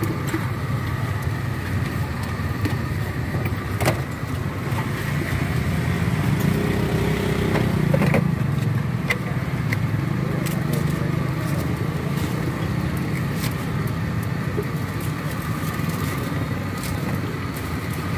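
A steady low mechanical rumble, as of motor vehicles, that swells about six seconds in and eases after eight. Scattered sharp clicks and clinks come through it as plastic cups and lids are handled on a steel counter.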